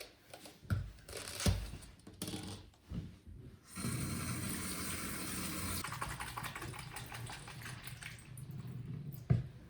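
Kitchen tap running into a sink or pot for about five seconds. Before it come a few knocks and clatters of kitchenware, and a sharp knock near the end.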